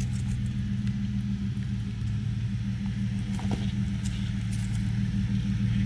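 Fifth-generation Toyota 4Runner engine running at low, steady revs, slowly growing louder, with a few faint clicks in the middle.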